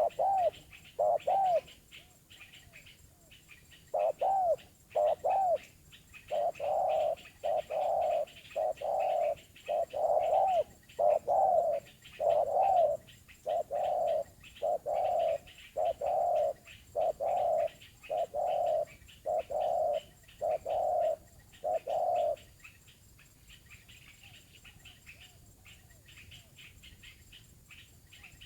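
Spotted dove cooing in a long run of short, arched notes at about two a second, with a brief pause near the start, stopping about 22 seconds in; a call its keeper describes as small-voiced but quite angry. Small birds chirp faintly throughout.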